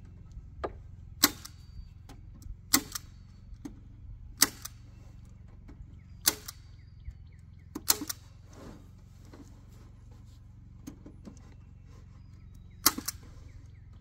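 Harbor Freight staple gun firing staples through wire mesh into a wooden box, with about six sharp shots a second or two apart and lighter clicks and taps between them. The shots stop for about five seconds before one more near the end.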